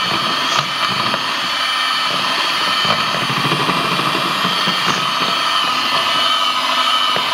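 Electric hand mixer running at a steady speed, its beaters whipping cream in a bowl, with a few light clicks.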